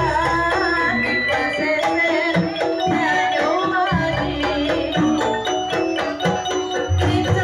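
Live jaranan gamelan music: hand drums playing a fast rhythm under a wavering melody line, with deep low strokes about four and seven seconds in.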